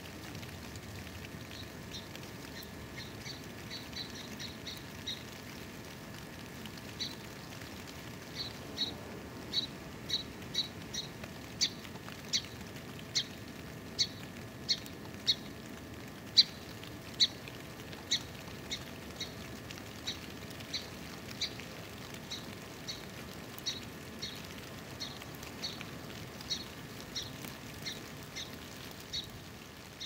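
A small bird giving short, sharp chirps over and over, a little under two a second, faint at first, loudest about halfway through, then softer, over a steady faint hiss.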